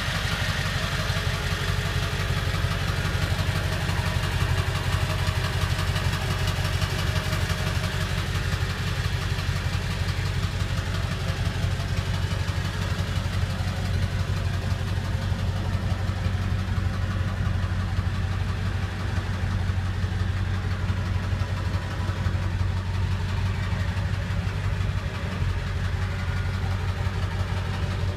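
1999 Ford F-350 Super Duty's 7.3-litre Power Stroke V8 turbo-diesel idling steadily.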